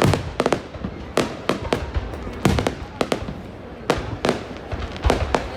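Fireworks display bursting: an irregular run of sharp bangs and cracks, some in quick doubles and clusters, a few with a deep low boom.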